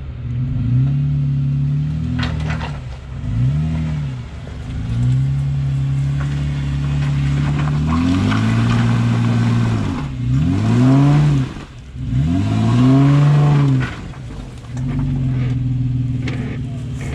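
Jeep engine revving up and dropping back again and again, in repeated throttle bursts, as it is driven slowly through an off-camber trail obstacle.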